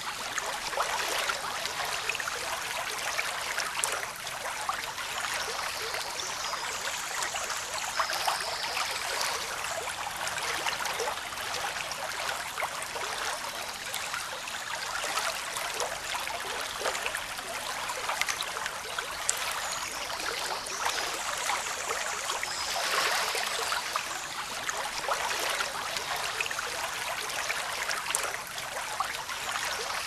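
Running water from a stream, babbling steadily with fine splashing and trickling.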